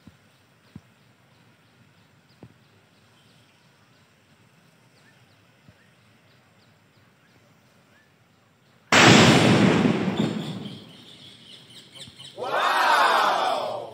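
A firecracker in a plastic bag of petrol goes off with one sudden loud bang about nine seconds in, the noise dying away over about two seconds. Before it there are a few faint clicks. Near the end a person's voice calls out loudly.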